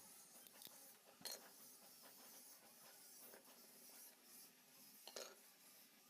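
Near silence with a few faint, scattered clicks and light taps of small objects being handled, the clearest about a second in and near the end.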